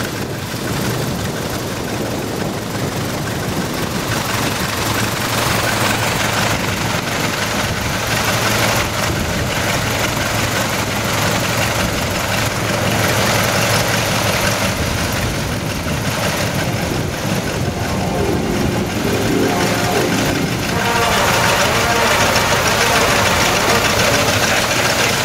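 Piston engine of a First World War biplane replica running steadily at idle, a little louder from about 21 seconds in.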